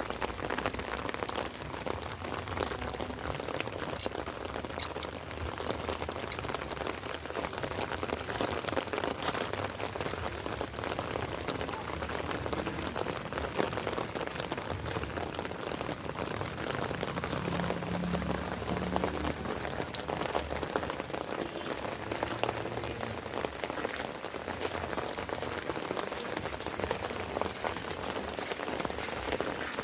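Light rain falling steadily, an even patter of drops, with a few sharper single drop taps about four, five and nine seconds in.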